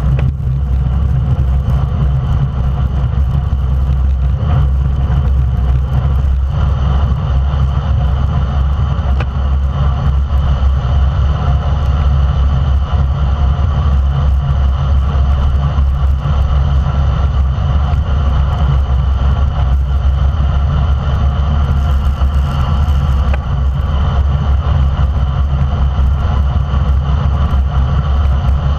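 Steady, loud wind roar over a bike-mounted action camera's microphone, with road-bike tyres rolling fast on asphalt.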